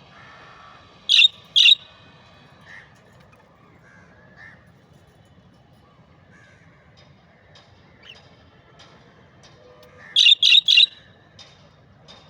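Budgerigars calling: two loud, harsh screeches about a second in and three more in quick succession near the end, with soft chirps between them.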